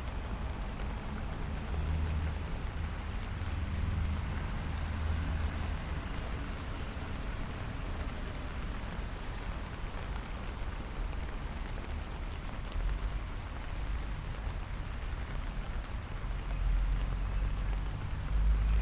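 Steady light rain hissing on the street and pavement, over a low rumble of city traffic that grows louder near the end.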